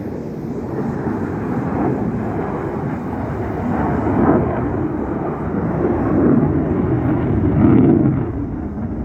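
Military jet flying overhead at altitude: a continuous rushing engine rumble that swells about four seconds in and again near the end.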